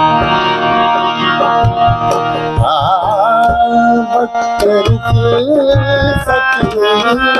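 Harmonium accompanying a man singing a song, the voice wavering on a held note about three seconds in, over regular hand-drum strokes.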